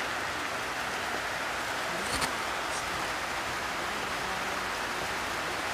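Steady rain falling, an even hiss, with a brief click about two seconds in.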